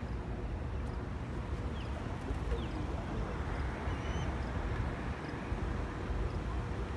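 Steady low rumble of churning water in the tailwater below a Tennessee River dam, with a faint steady hum and a few faint bird chirps.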